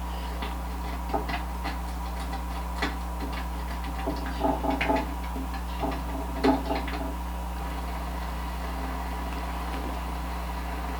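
Street-food cooking sounds: light, scattered taps and clicks of utensils at the cooking of a rice-paper pizza, over a steady low hum.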